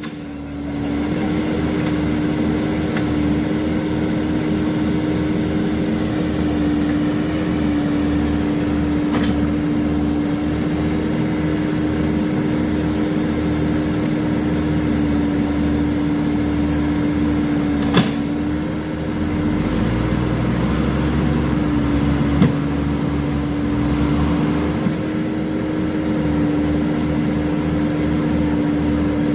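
Heavy diesel earthmoving machinery running steadily under load, with a strong steady hum over a low rumble. Two sharp knocks come about 18 and 22 seconds in, and between them a faint high wavering whine rises and falls.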